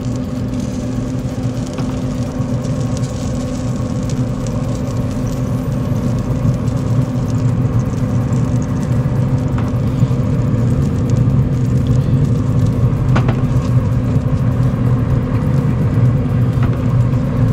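A steady low mechanical hum and drone that grows slightly louder, with a couple of faint knocks partway through.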